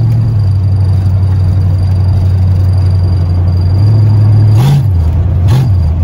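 1973 Ford Mustang's 302 small-block V8 running straight-piped, its exhaust cut off just behind the manifolds, heard loud from the driver's seat while cruising. The steady drone steps up slightly, then rises and falls briefly twice near the end as the throttle is blipped.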